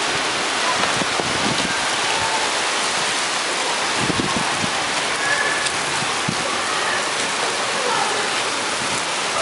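Cloudburst: heavy rain pouring down steadily onto the wet street.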